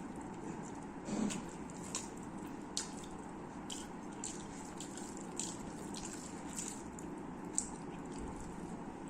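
Close-miked eating sounds of someone chewing food: soft wet mouth clicks and smacks at irregular intervals, over a steady low background hum.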